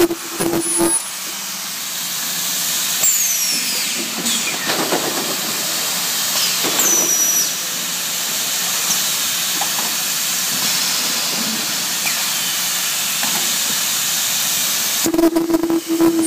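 Ultrasonic welding machine for flat plate solar absorbers running: a steady high hiss with a couple of short falling whistles. A low hum with rapid clicking sounds in the first second and again near the end.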